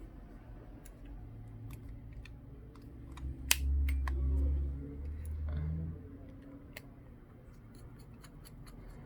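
Small sharp clicks and taps of a precision screwdriver and small tools on a smartphone's frame as its screws are fitted back in, with a louder click about three and a half seconds in followed by a low rumble for a couple of seconds.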